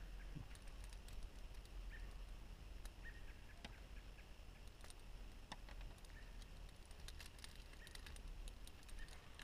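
Faint, scattered light clicks and taps from handling a RockShox Reverb dropper seatpost and its remote lever and hose, over a low steady wind rumble, with a few short high chirps.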